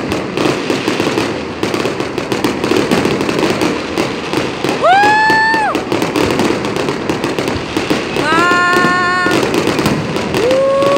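Fireworks display going off: a dense, continuous run of crackling and banging from bursting aerial shells. High, held whoops from onlookers cut through about five seconds in, again a few seconds later, and near the end.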